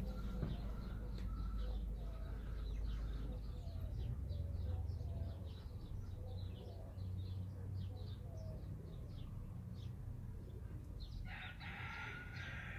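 Many small birds chirping, over a low steady rumble. A rooster crows once near the end, a call lasting under two seconds.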